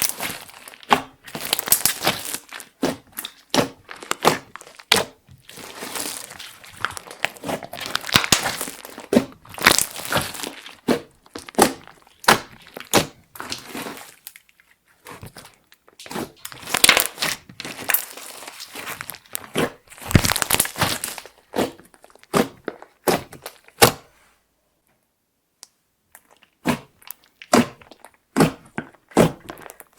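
Clear slime with makeup and glitter mixed in being kneaded, stretched and squeezed by hand. It gives off a rapid, irregular run of sticky clicks, crackles and pops, with a silent break of about two seconds near the end.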